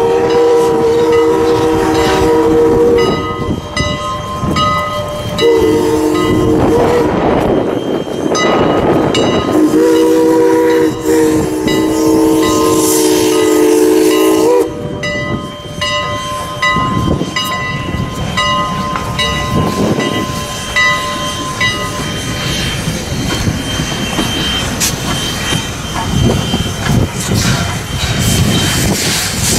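Steam locomotive's chime whistle blowing the road-crossing signal: a long blast, a short one and a longer one as it reaches the grade crossing. After the whistle stops, the train runs past with exhaust chuffs and the clatter of its wheels on the rails.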